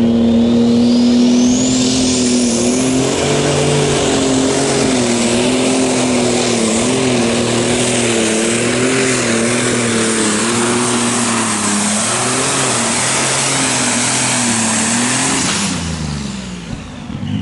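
Superstock pulling tractor's turbocharged diesel engine running flat out under load during a pull, its note wavering as the engine speed swings. A high turbo whine climbs steeply over the first few seconds. Near the end the engine note falls away as the throttle is lifted.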